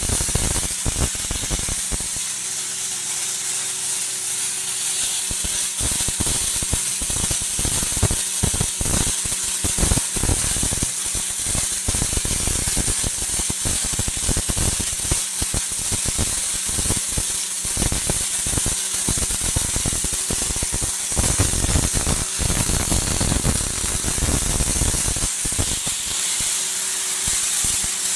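Lorch S5 SpeedPulse XT MIG/MAG welding arc burning steadily, a constant hiss with dense, irregular crackling.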